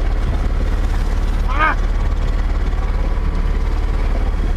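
The trimaran's motor runs steadily with a low, even thrum as the boat moves under power. A short, high call cuts through briefly about one and a half seconds in.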